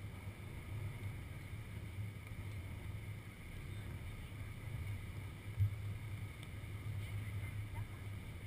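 Wind buffeting an action camera's microphone, a steady low rumble, with one brief thump about five and a half seconds in.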